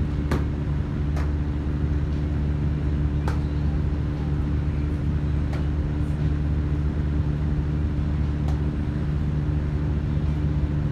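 A steady low mechanical hum with no change in pitch, with a few faint sharp clicks or taps scattered through it.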